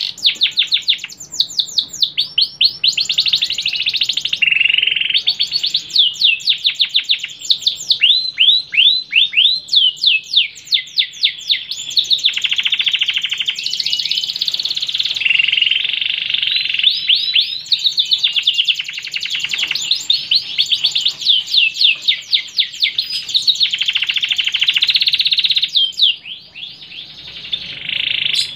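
Domestic canary singing a long, near-continuous song of fast trills and rapidly repeated down-sweeping notes, high-pitched, with a short break near the end.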